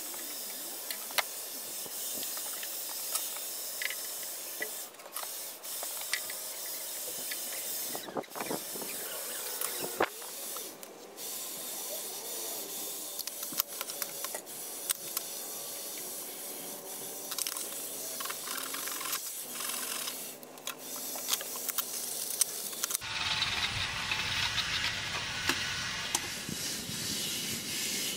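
Steady background hiss with scattered light clicks and knocks as metal rules and tools are handled and set down on a wooden workbench. Near the end the background noise turns fuller and deeper.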